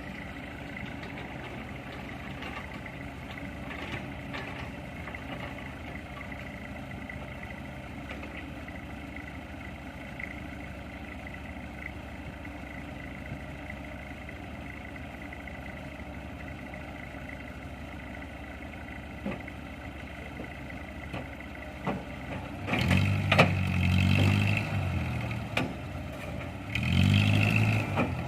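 Heavy machine's engine running steadily at low revs, then revved up twice near the end, each rise lasting a second or two.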